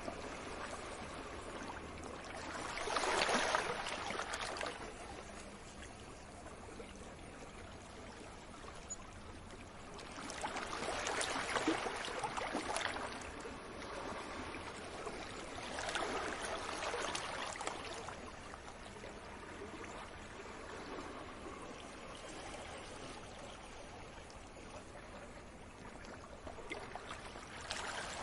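Sea waves breaking on a beach: a steady wash of surf that swells into louder breaking waves every several seconds, four times in all.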